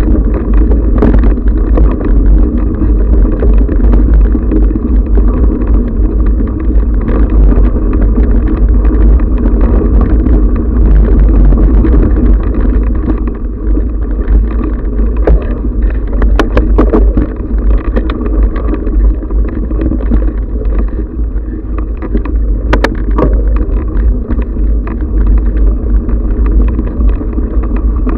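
Loud, steady wind rumble and rattle on a bike-mounted action camera while a mountain bike rolls over a dirt singletrack. Scattered sharp knocks and clatters come from bumps in the trail, several of them about halfway through.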